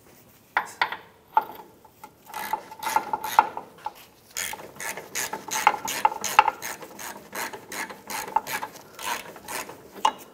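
Hand ratchet clicking in quick runs of strokes with short pauses as a lower control arm mounting bolt is run in by hand, only a few threads, not tightened.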